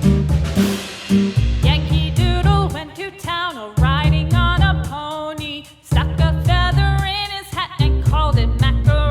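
Background music: a pop-style song with a singing melody that bends in pitch over a steady, heavy bass beat, briefly dropping out about six seconds in.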